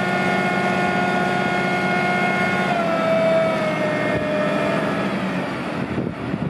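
Hydraulic whine from a Rosenbauer 45 m aerial ladder platform as its boom and cage are lowered onto the rest, over the truck's engine running. The whine is steady, dips slightly in pitch about three seconds in, and fades out about five seconds in.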